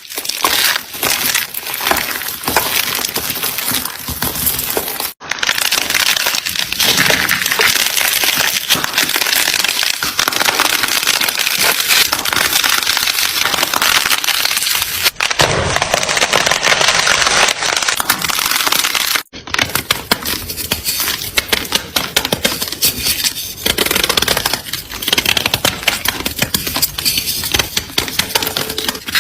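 Close-up crunching and crackling, dense with small clicks, in several stretches that break off abruptly about 5, 15 and 19 seconds in.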